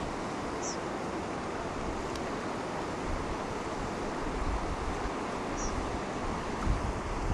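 Steady rush of water with wind buffeting the microphone. Two brief high chirps come through, one under a second in and one about five and a half seconds in, and low thumps sound near the end.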